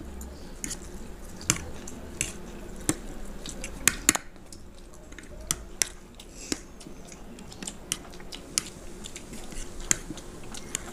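Forks clicking and scraping on plates as two people eat egg chow mein, with chewing and slurping of the noodles. The clicks come irregularly, a few every second or two.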